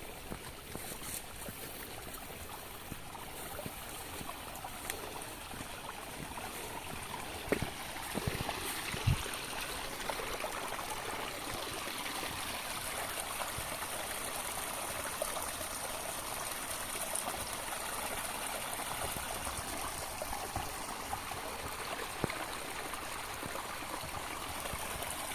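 Water running steadily with a trickling, gurgling flow. Two short knocks come about a third of the way in.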